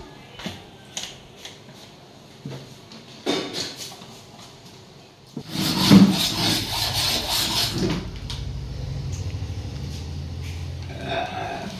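Curry in a clay pot sizzling loudly for about two and a half seconds as something is added by hand, after a few light clicks and knocks. A steady low hum follows.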